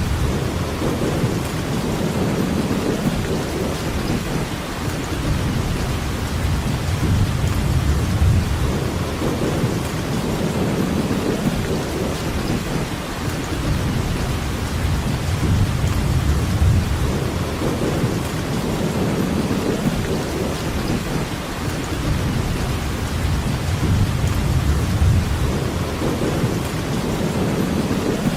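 Steady rain hiss, with a low rumble underneath that swells and fades every few seconds.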